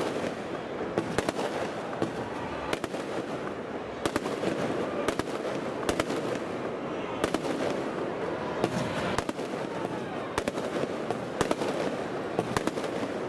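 Aerial fireworks shells bursting close overhead: sharp bangs at irregular intervals, roughly one a second, over a steady wash of noise.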